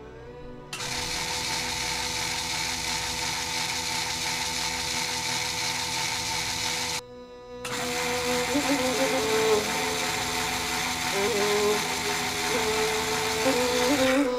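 SCX slot car's small electric motor, converted from digital to analog, running steadily on a rolling-road test stand and spinning the rear wheels on the rollers. It cuts out for about half a second midway, then runs again.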